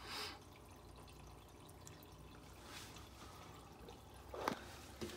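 Faint dripping and trickling of water from an aquarium filter, over a low steady hum.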